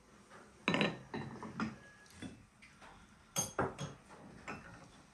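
Small tea glasses and glass saucers clinking and tapping on a wooden table: a string of short, sharp clinks at irregular intervals, several in quick succession a little past halfway.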